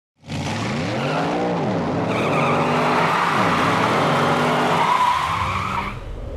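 Race car engine revving, its note rising and falling twice, under loud tyre squeal; it starts abruptly and cuts off near the end.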